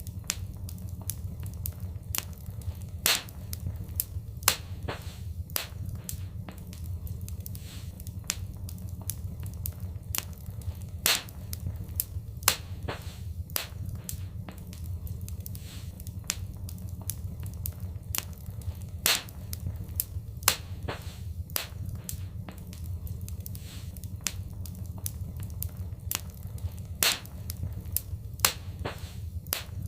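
Wood fire crackling: irregular sharp pops and snaps, a few much louder than the rest, over a steady low rumble of the flames.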